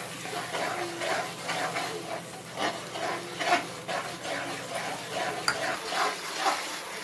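Metal spatula stirring and scraping around an aluminium kadhai in short repeated strokes, through a sauce simmering as cornflour slurry thickens it. A faint low hum underneath stops about six seconds in.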